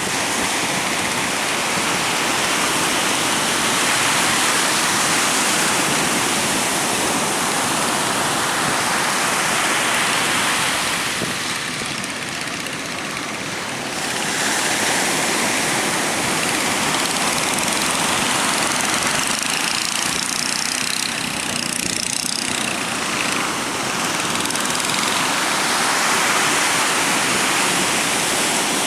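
Strong wind with sea waves breaking: a continuous rushing noise that swells and eases, dropping briefly a little under halfway through.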